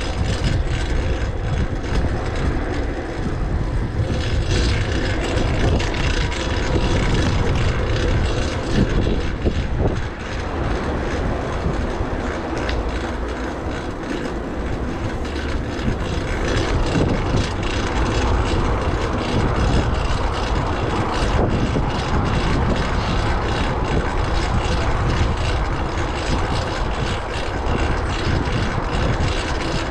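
Wind rush and road noise from riding a fixed-gear bicycle, with the loud drivetrain (chain over a new rear cog) running throughout.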